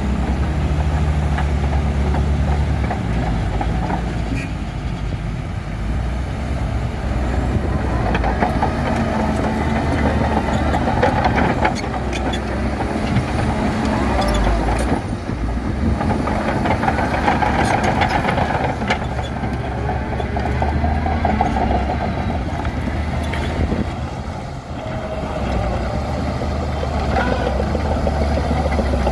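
Bulldozer's diesel engine running steadily as it pushes gravel, with rough scraping that swells and fades and a few sharp metallic clanks.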